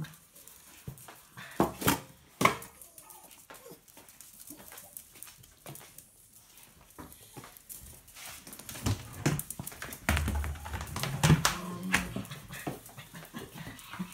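A pack of small dogs whimpering and moving about while stainless steel food bowls clank together in a stack. The loudest clanks come about two seconds in, with more knocks and whining near the end.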